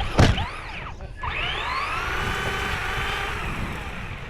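Remote-control car's motor whining, its pitch rising as it speeds up and then slowly dropping as it eases off, after a short loud thump near the start.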